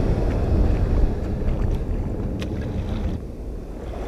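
Wind rumbling on the microphone over the wash of surf on the beach, easing a little near the end.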